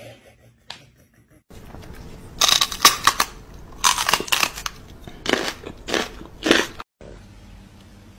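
A series of loud, irregular crunches, about eight over five seconds, beginning a little over a second in.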